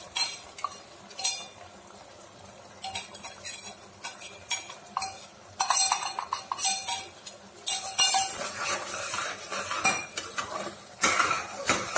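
Metal spoons clinking and scraping against a small steel cup and an aluminium pressure cooker, as ghee-roasted cashews and raisins are scraped out into thick sweet pongal and stirred in. Irregular clinks, getting busier from about halfway, with a stretch of steady scraping near the end.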